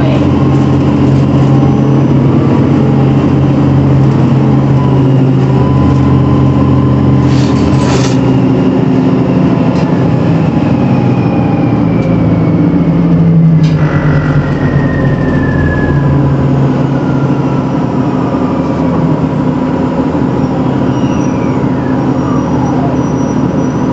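2008 Orion VII NG HEV diesel-electric hybrid bus running: a steady engine drone with a whine that glides down in pitch around the middle and a few more gliding whines near the end. A few short sharp clicks sound over it.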